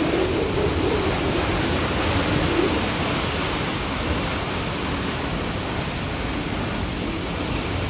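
Category 4 hurricane wind and wind-driven rain heard from inside a parked car: a loud, steady rushing roar with a low wavering howl in it.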